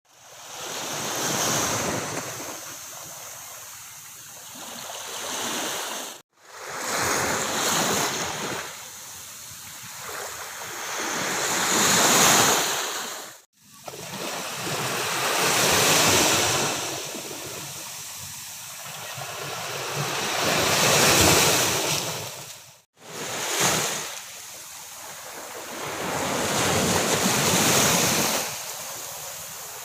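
Ocean waves breaking on a beach, the surf swelling and fading every few seconds. The sound drops out abruptly to silence three times, for a fraction of a second each.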